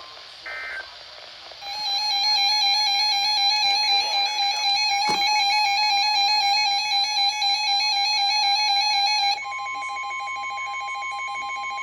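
Emergency alert tones from a NOAA Weather Radio receiver between two warnings. About half a second in there is a short burst of EAS data tone. From about two seconds in comes a loud warbling electronic alarm lasting about seven and a half seconds. It then gives way to the steady single-pitch 1050 Hz weather-radio warning alarm tone, which announces the next severe thunderstorm warning.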